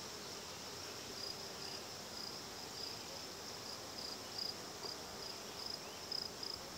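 A cricket chirping faintly and steadily, a high chirp repeating about two to three times a second over a soft background hiss.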